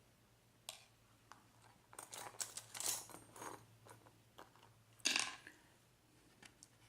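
Scattered light clicks and small clatters of objects being handled on a desk, a cluster in the middle and the loudest just after five seconds, over a faint steady hum.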